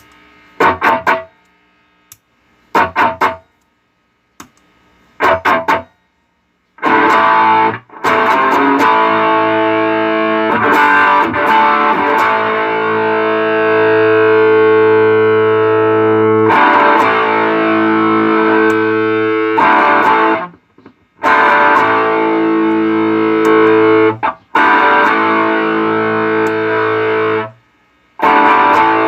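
Electric guitar played through a JHS Double Barrel dual overdrive pedal: a few short overdriven chord stabs, then long ringing chords from about seven seconds in, cut off and restruck a couple of times, and short stabs again near the end. The gaps between chords stay quiet.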